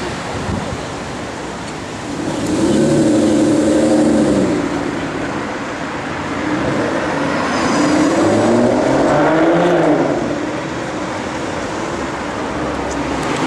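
Aston Martin DBS's V12 engine accelerating hard twice, each burst of revs lasting a couple of seconds with the pitch climbing, over steady city traffic noise.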